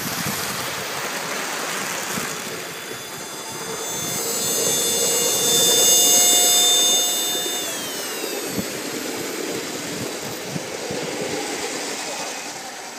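High-pitched whine of a Gauge 1 live-steam turbine-electric locomotive's steam turbine and generator as it runs past close by. It swells to its loudest about halfway through, then drops in pitch and fades as the locomotive moves away. A steady rushing noise runs beneath the whine.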